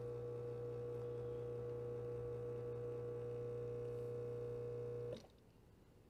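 Breville Barista Touch Impress espresso machine's pump humming steadily as it pushes water through the coffee puck, then cutting off abruptly about five seconds in as the volumetric machine ends the shot at its set volume.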